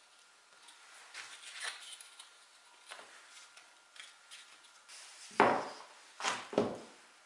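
Thin wooden strips being handled on a workbench: light taps and rubs. Then three louder wooden knocks a little over five seconds in, the first the heaviest, as boards are set down on the bench.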